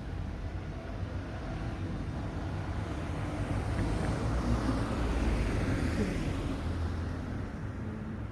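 A road vehicle passing by. Its tyre and engine noise swells to a peak about five seconds in, drops slightly in pitch as it goes past, then fades.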